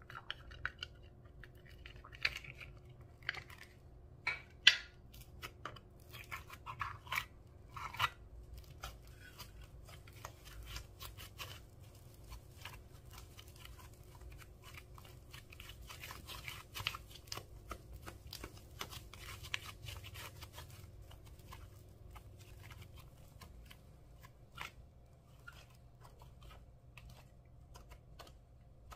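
Slime being squeezed and stretched by hand, making sticky crackling and popping clicks. The pops are loudest and sharpest in the first eight seconds or so, then give way to a softer, steadier crackle that thins out near the end.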